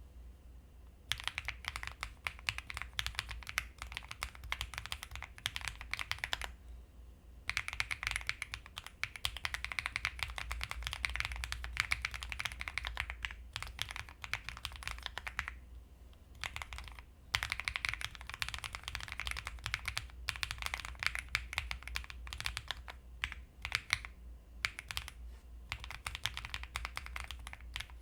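EPOMAKER Tide 49 mechanical keyboard being typed on quickly, in runs of rapid keystroke clicks lasting several seconds each, broken by brief pauses.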